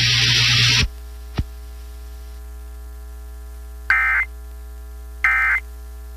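Loud hiss of static that cuts off under a second in, leaving a low steady hum. Then two short bursts of Emergency Alert System data tones about 1.3 s apart: the end-of-message code that closes the tornado warning broadcast.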